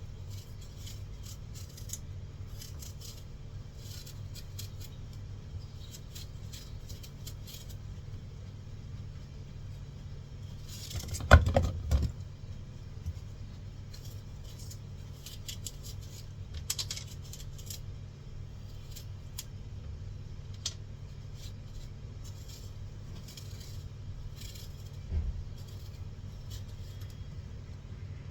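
Kitchen knife cutting fruit on a cutting board, with pieces dropped into a dish: scattered light clicks and taps, a louder clatter about eleven seconds in and a thump near the end, over a steady low hum.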